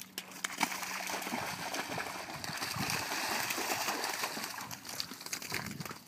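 Water splashing and sloshing, a continuous rushing splash with small scattered spatters.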